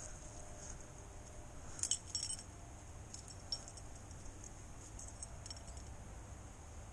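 Light metallic clinking and jingling from small metal hardware: a quick cluster of clinks about two seconds in, a single clink a little later and a few faint ones after, over a faint steady high hiss.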